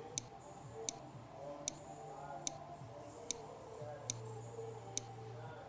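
Sharp, evenly spaced ticks, about one every 0.8 seconds, keeping time with each push-up as it is counted.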